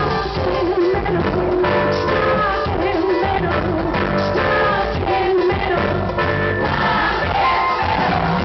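Live pop concert music: a band playing with a singer's voice over it, echoing in a large hall.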